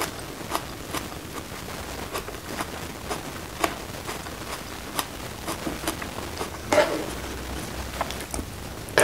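Faint, irregular wet clicks over a steady hiss, about one a second: mouth and chewing sounds of someone eating with her lips closed.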